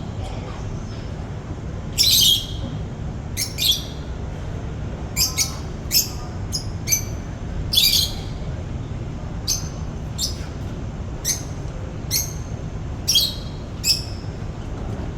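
Small birds chirping: short, sharp, high chirps repeated irregularly, about one a second, over a steady low background rumble.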